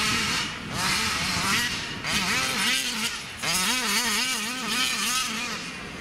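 Big-bore two-stroke petrol engine of a large-scale RC car revving up and down over and over, its pitch rising and falling about three times a second through much of it.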